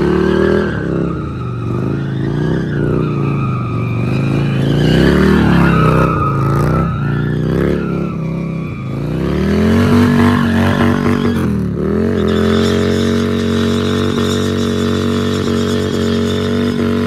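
Harley-Davidson V-twin engine revving up and down while the rear tyre spins and skids on the pavement in donuts. About ten seconds in the engine is held at high, steady revs for a burnout, with one brief dip just before twelve seconds.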